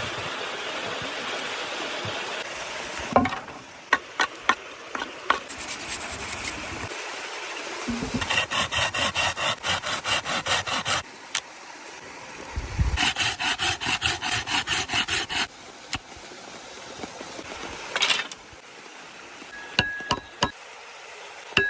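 Hands-on outdoor food preparation: a steady hiss, then a few sharp knocks, then two runs of rapid rhythmic rasping strokes, about four or five a second.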